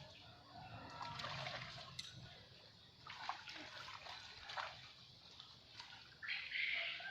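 Water splashing and sloshing in irregular bursts, the loudest near the end.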